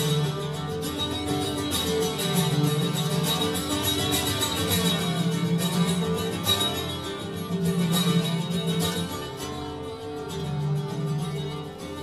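Instrumental music on plucked strings: a slow accompaniment whose low notes change every second or two.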